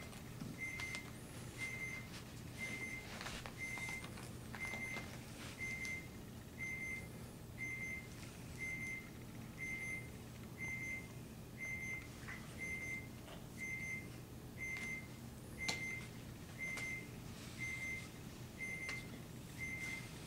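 An electronic beeper sounding one short, high beep about once a second, over light clicks and taps of cardboard jigsaw puzzle pieces being handled.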